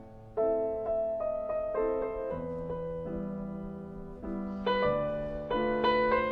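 Background piano music: a slow, gentle piece of chords and single notes struck about every half second to a second, each ringing and fading, after a brief lull at the start.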